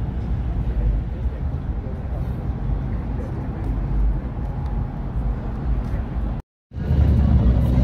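Outdoor ambience: a steady low rumble with faint background voices, cut by a brief dropout about six and a half seconds in, after which it is louder.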